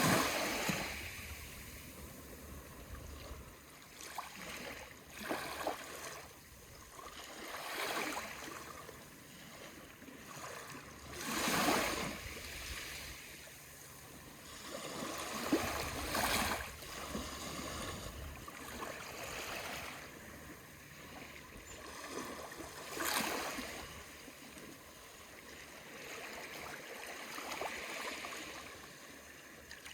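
Small waves of the Aegean Sea washing in, a soft rush of surf rising and falling every three to four seconds.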